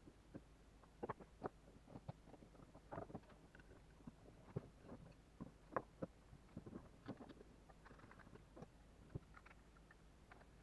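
Faint, scattered clicks and light knocks of aluminium extrusion profiles, screws and small metal fittings being handled and fitted together by hand while assembling a laser engraver frame.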